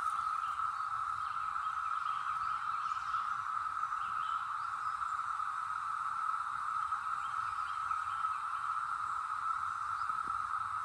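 Brood X periodical cicadas in a massed chorus: a steady, unbroken high drone that holds one pitch.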